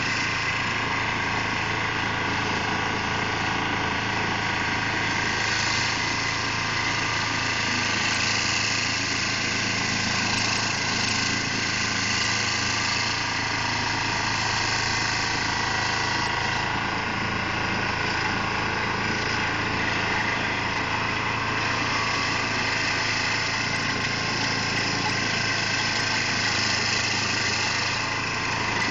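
2004 Carlton SP4012 stump grinder running steadily, its engine held at working speed while the cutter wheel grinds into a stump.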